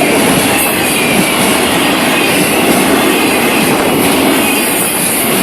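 Freight cars rolling past at close range: a loud, steady noise of steel wheels on the rails.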